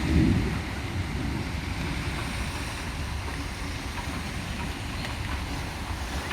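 Squall wind and a downpour: an even hiss of rain with wind rumbling on the microphone, and a louder gust in the first half-second.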